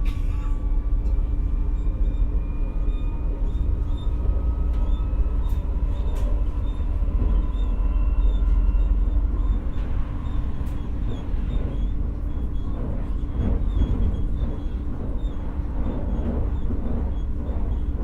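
Stockholm commuter rail X60 (Alstom Coradia Nordic) electric multiple unit running on the line, heard from inside the car. There is a steady low rumble of wheels on rail and a faint electric traction whine that rises in pitch over the first several seconds. From about halfway through there is some irregular clatter from the track.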